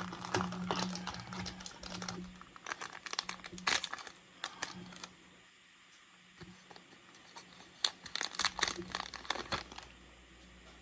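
Crinkling of a trading-card booster pack's foil wrapper as it is handled and torn open, in two spells of crackling with a short lull between.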